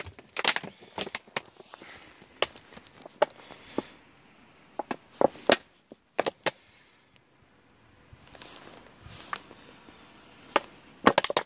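Thin-walled plastic bottle of motor oil being handled and tipped over, its ribbed walls crackling and clicking in scattered sharp knocks with short pauses between them.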